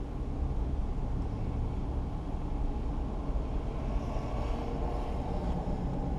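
Steady low vehicle rumble heard from inside a car cabin with its window open.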